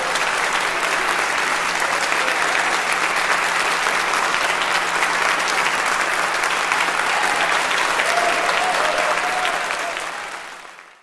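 Audience applauding in a large, echoing church, fading out near the end.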